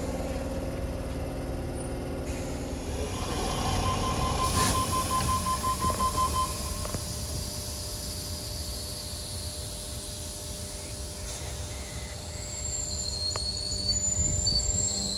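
Sydney Trains double-deck electric train standing at the platform with its equipment running. About four seconds in, a quick run of high beeps lasts a couple of seconds: the door-closing warning. Near the end a high whine rises as the train starts to pull away.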